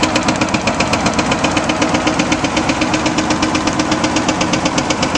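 Caterpillar excavator working at a dam, its diesel engine running under a rapid, even clatter of about eight knocks a second, with river water rushing over the broken dam.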